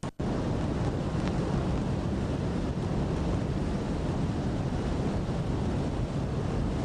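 Steady wind buffeting the microphone, with a rush of water underneath.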